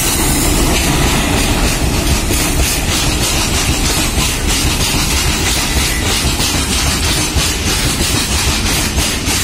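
Electric-hauled freight train of loaded open wagons rolling past at close range: a steady rumble with the wheels clacking over the rail joints.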